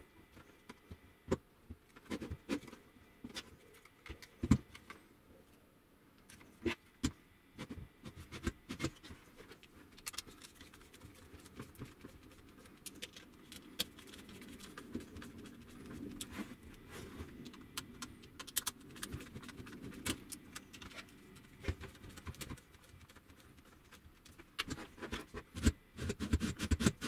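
Scattered clicks, taps and light scraping of hands handling plastic parts while a 775 DC motor is fitted into a 3D-printed router carriage and its screws are tightened with a small screwdriver. The taps come more thickly near the end.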